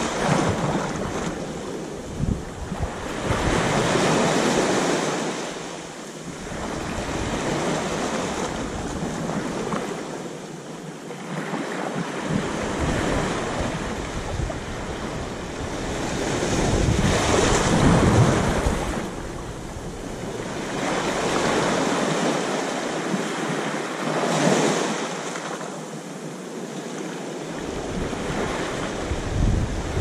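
Small waves washing up onto a sandy beach at the water's edge, the surf swelling and fading every several seconds, with a low rumble of wind on the microphone.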